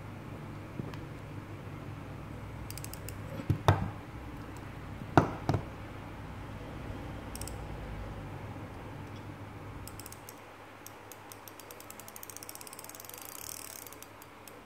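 Shimano Stella 2000SHG spinning reel turned by hand, its gears whirring steadily while its freshly fitted line roller and bearing are tried out. There are two sharp clicks about a second and a half apart, and a fast run of fine ticks near the end.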